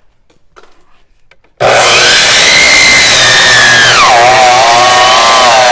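Electric chop saw starting abruptly about a second and a half in and running loud with a high whine. The whine drops in pitch for about a second and a half as the motor slows under load cutting through the bone-in New York strip loin, then climbs back up.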